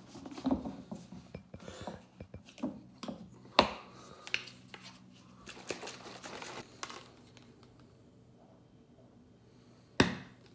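Plastic protein shaker bottle being closed and mixed: the screw lid clicks and knocks as it goes on, the bottle is shaken in a short burst about six seconds in, and a single sharp snap comes near the end.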